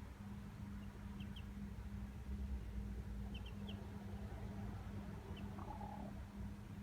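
A few faint, very short high peeps from chicks, in twos and threes about a second in and again around three and a half seconds, over a steady low hum. A short lower call follows near six seconds.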